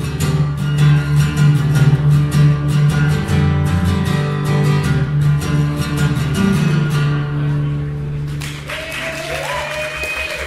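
Acoustic guitar strummed in steady chords, closing the song on a last chord that rings out about eight seconds in. Clapping and a cheering voice begin as the chord fades.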